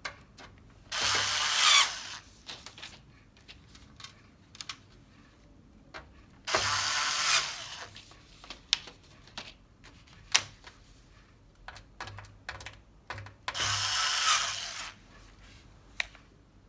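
Electric screwdriver whirring in three bursts of about a second each, driving small screws through a TV's reflector sheet into the backplate, with light clicks and taps of handling in between.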